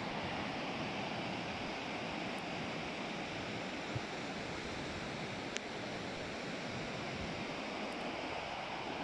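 Steady rush of a muddy, rain-swollen river in flood, an even roar of water with a couple of faint clicks near the middle.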